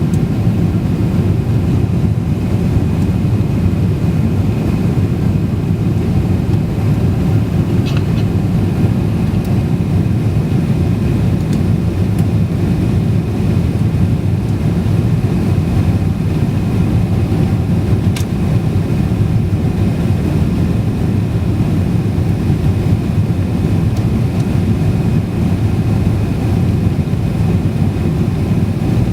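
Passenger jet's engines and airflow: a steady low rumble with a faint thin whine above it, unchanging throughout.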